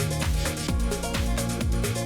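Electronic dance background music with a steady kick-drum beat, about two beats a second.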